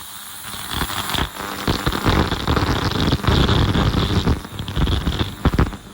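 Ultrasonic parts cleaner running with an engine piston in the bath, heard close up as a loud, rough crackling hiss that comes in about half a second in and drops away near the end.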